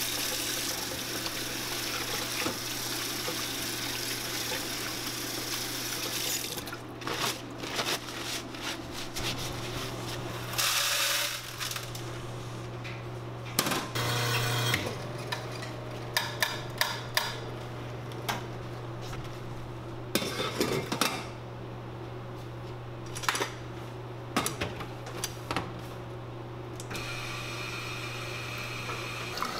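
Clinks and knocks of dishes and coffee equipment being handled behind a café counter, scattered irregularly over a steady low hum from an appliance. A couple of short rushing noises come about a third of the way in and again near the middle.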